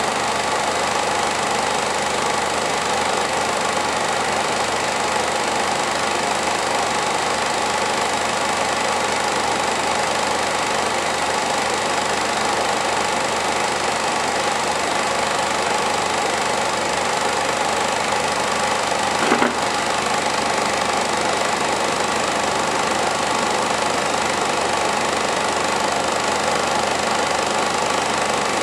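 Home-movie film projector running with a steady mechanical whir and clatter. A brief blip about two-thirds of the way through.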